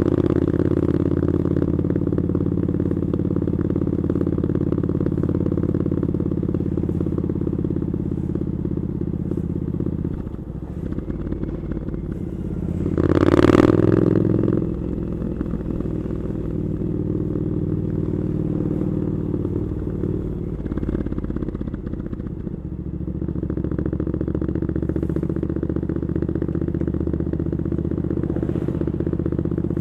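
Triumph Scrambler 900's parallel-twin engine through Arrow exhaust pipes, running at a steady cruise and easing off twice. A brief, louder swell comes about halfway through.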